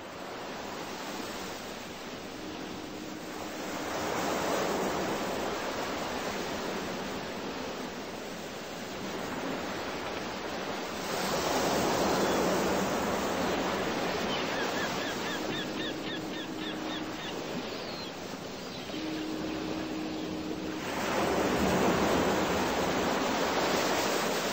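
Sea surf: waves washing in and breaking in slow swells, surging louder about four seconds in, again around eleven seconds, and near the end.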